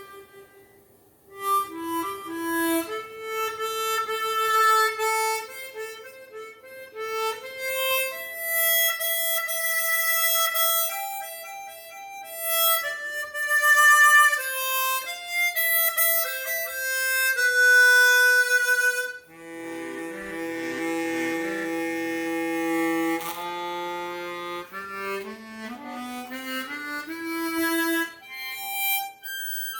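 Seydel Symphony chromatic harmonica with stock covers, played acoustically without amplification. It plays a melody of single notes, then sustained chords with lower notes about two-thirds of the way through, and a run of stepping notes near the end.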